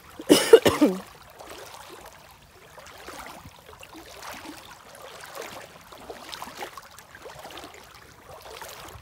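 Feet wading through shallow floodwater, the water sloshing and swishing around the legs in irregular, fairly faint splashes. A short, loud vocal sound like a cough or throat-clearing comes right at the start.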